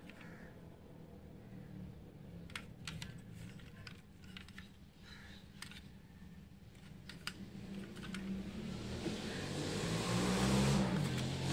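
Small sharp clicks and taps of die-cast metal toy cars being handled and set down, over a low steady hum. A rising rush of noise builds over the last few seconds.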